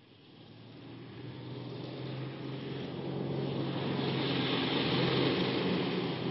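A car driving up at night: engine hum and road noise growing steadily louder as it approaches, loudest about five seconds in, then starting to ease off as it passes.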